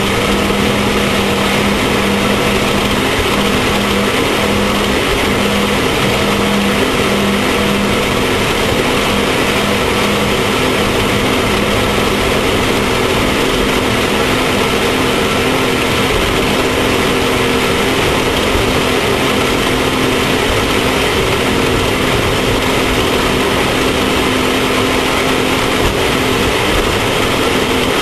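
Off-road race vehicle's engine running hard at a nearly constant speed, with a continuous rushing noise over it.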